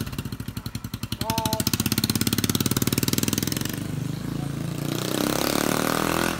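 Motorcycle engine running with a rapid, even pulse, then its note rises near the end as it pulls away. A person's brief call is heard about a second in.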